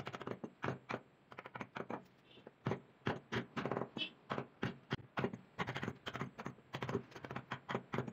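Wooden mallet tapping a carving chisel into wood: short sharp knocks, a few scattered at first, then a steady run of about three a second.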